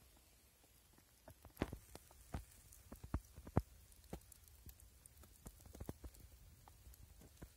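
Irregular crackles and sharp clicks from skewers of fish being grilled over a bed of wood charcoal, a dozen or so scattered pops and light knocks, the loudest between about one and a half and four seconds in.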